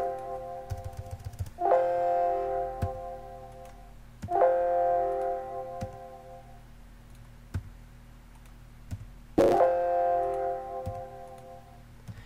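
Windows alert chime sounding three times a few seconds apart, each ringing out and fading over about two seconds, with faint clicks of keys and mouse in between.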